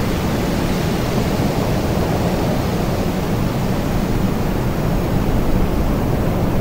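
Wind blowing steadily: a continuous, even rushing noise, heaviest in the low end, with no marked gusts.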